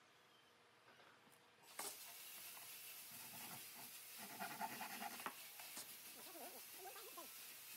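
Near silence: a faint steady hiss that comes in about two seconds in, with a few faint squeaks near the end.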